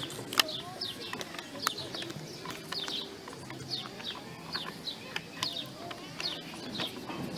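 Birds chirping over and over in short falling chirps, over a low murmur of distant voices, with a few sharp clicks.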